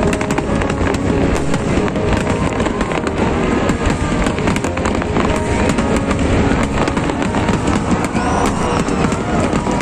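Dense barrage of aerial fireworks: shells bursting close together, with continuous crackling throughout.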